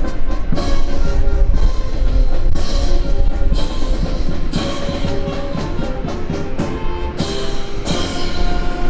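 Orchestral or band music with held brass-like chords and drums, punctuated by sharp accented hits about once a second.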